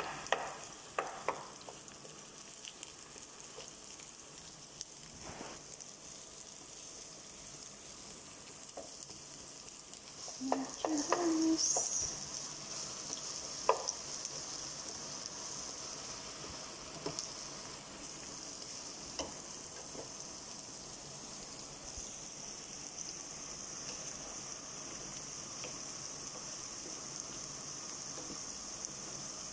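Sliced onions sizzling in hot cooking oil in a non-stick frying pan, stirred with a wooden spatula that knocks against the pan now and then. The sizzle grows louder about ten seconds in.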